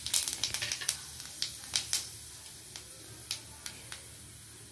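Whole fennel seeds, cloves and cinnamon sizzling and crackling in hot oil in a kadai: the tempering stage, the oil hot enough to make the spices pop. The pops come thickest in the first couple of seconds, then thin out over a steady hiss.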